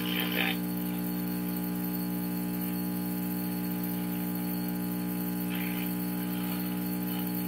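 Steady mains hum with a buzzy stack of overtones from a 1949 Admiral radio-phonograph's speaker. The set is running at 110 volts on its original electrolytic filter capacitors, which the owner judges old and shot.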